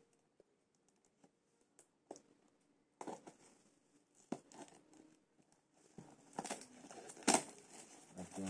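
Nearly silent for about three seconds, then scissors scraping and cutting through the packing tape on a small cardboard box. Near the end the box flaps are pulled open with cardboard rustling and a sharp snap about seven seconds in.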